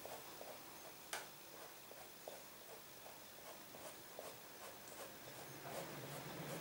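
Faint scratching of a Pentel FabricFun fabric pastel stick on a pillowcase, in short repeated dabbing strokes, with one sharper tick about a second in.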